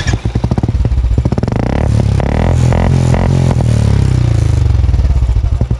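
Royal Enfield Classic 350's single-cylinder engine running through an aftermarket 'Mini Punjab' silencer with double filter. Its exhaust pulses come in quick succession, and the revs fall and rise in the middle.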